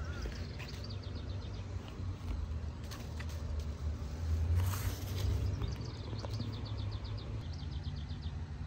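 Outdoor garden ambience: a steady low wind rumble on the microphone, leaves rustling about halfway through, and two rapid ticking trills from a bird, a short one near the start and a longer one near the end.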